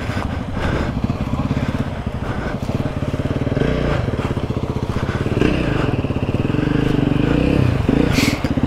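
Off-road motorcycle engines running and being revved as the bikes come up, the pitch rising and falling several times and the sound slowly getting louder, with a short sharp noise near the end.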